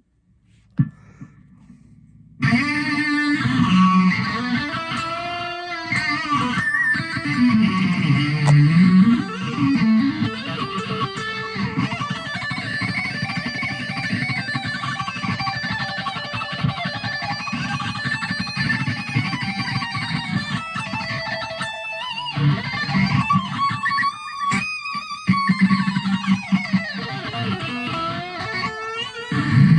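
Electric guitar, a Fender Stratocaster with DiMarzio pickups played through a Line 6 Spider IV 15-watt amp, playing a fast lead solo with string bends and vibrato. The playing starts about two seconds in, after a single click.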